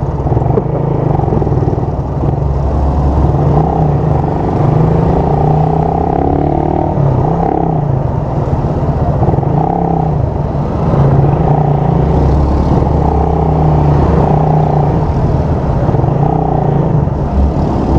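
Motorcycle engine running with wind rushing past, heard through a microphone inside the rider's helmet. The engine pitch rises and falls with speed.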